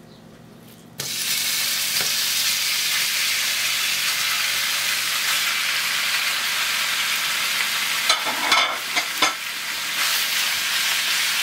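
Thin-sliced raw beef hitting preheated cooking oil in a nonstick frying pan: a sizzle starts suddenly about a second in and carries on steadily. Around eight to nine seconds in, a few knocks and scrapes come as a silicone spatula stirs the meat in the frying oil.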